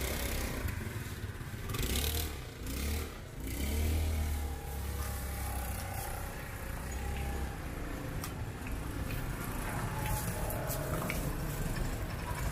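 Street traffic noise: a motor vehicle's engine running, with a low rumble that is strongest from about two to seven seconds in.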